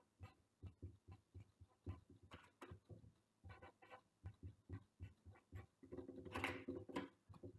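Faint marker drawing on small paper strips on a glass tabletop: quick irregular taps and scratches, with a few short squeaks of the felt tip, the loudest about six seconds in.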